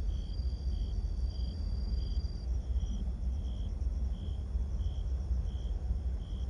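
Crickets chirping in a steady, even rhythm, about one and a half chirps a second, over a loud, steady low rumble. A thin, high insect trill runs alongside the chirps and stops about two and a half seconds in.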